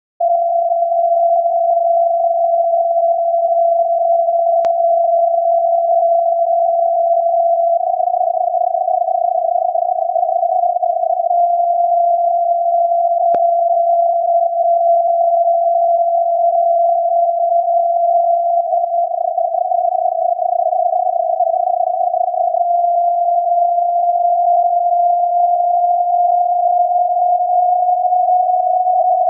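The unkeyed carrier of SAQ's 17.2 kHz Alexanderson alternator transmitter, received on a software-defined radio as a steady beat tone of about 700 Hz within band-limited hiss. The pitch drifts slightly as the receiver is fine-tuned, rising a little near the end. Two faint clicks come at about 5 and 13 seconds in.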